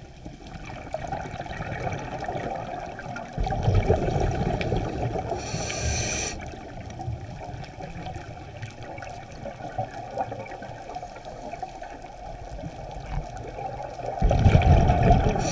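Scuba regulator breathing heard underwater: a bubbling exhalation about three seconds in and another near the end, each followed by a short hiss of a breath drawn through the regulator, over a steady underwater wash.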